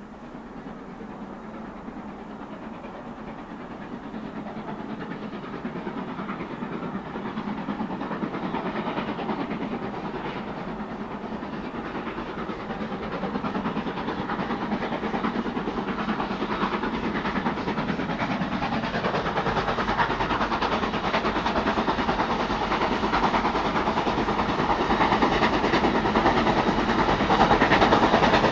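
Steam-hauled train approaching, its sound growing steadily louder throughout.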